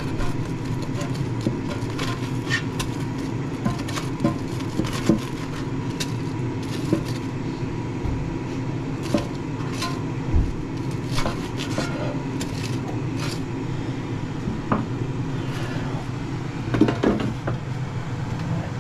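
Steady hum of an air fryer's fan running, with scattered light clicks and scrapes of a silicone spatula turning breaded potato cakes in the air fryer's metal basket. A louder clatter comes near the end.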